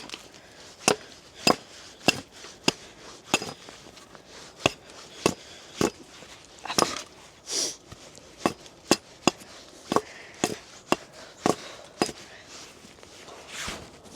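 Axe chopping at a log to strip off its bark: a long series of sharp wooden chops, roughly two a second, with a few short gaps.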